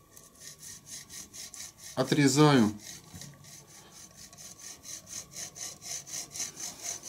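Hacksaw cutting through a thin metal rod held in a vise: quick, even back-and-forth rasping strokes that get gradually louder as the cut goes on.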